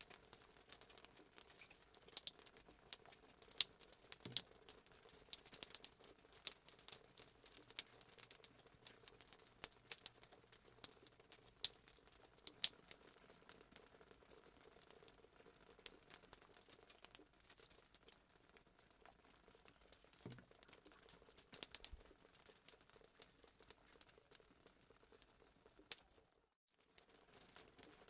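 Fireplace sound effect: a wood fire crackling quietly with dense, irregular pops and snaps over a soft hiss, cutting out for a moment near the end.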